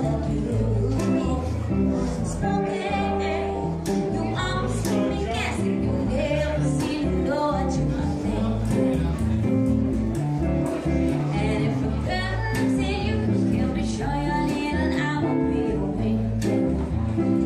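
Live jazzy band: a woman singing into a microphone, backed by a double bass and an electric archtop guitar.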